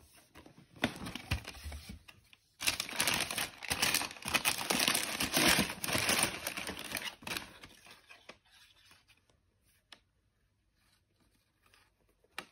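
Cardboard shoebox being opened, then white tissue paper loudly crinkling and rustling as a football boot is pulled out of its wrapping. The rustling fades to soft, scattered handling noises after about seven and a half seconds.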